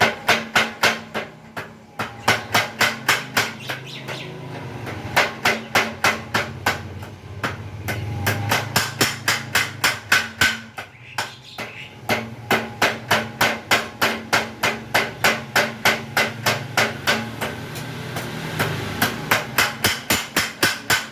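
Blacksmith's mechanical power hammer striking in fast runs of about four to five blows a second, with short pauses between runs, over a steady low motor hum.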